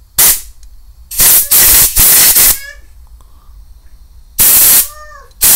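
Compressed-air blow gun giving several short, loud blasts of hissing air through a motorcycle carburettor jet to blow it clean.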